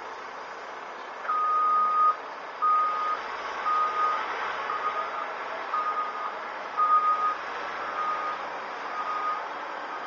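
Reversing alarm of an articulated dump truck backing up, a single-pitched beep repeating about once a second, starting about a second in, over the steady running of heavy diesel machinery.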